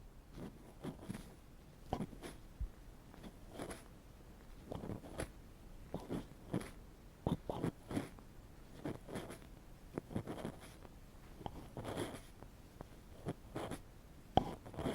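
Ear pick scraping and scratching against a microphone for ear-cleaning ASMR: irregular rough scrapes, one or two a second, a little loud rather than soft.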